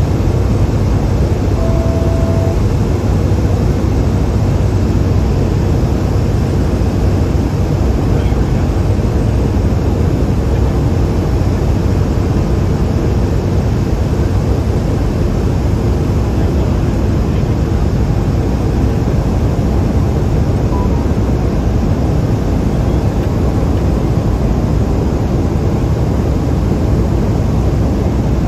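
Steady cabin drone of a Cessna 208 Caravan's Pratt & Whitney PT6A turboprop engine and propeller in flight on approach to landing, a dense even noise strongest in the low end. A short faint beep sounds about two seconds in.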